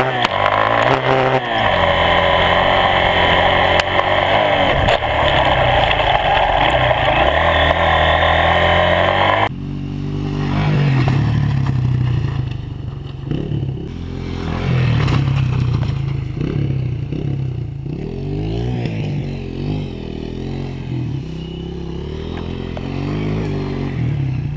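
Honda CRF80F dirt bike's small four-stroke single running hard, heard up close from an onboard camera for the first nine or so seconds; then, after a sudden cut, the same kind of engine heard from a short way off as the bike rides around, its revs rising and falling.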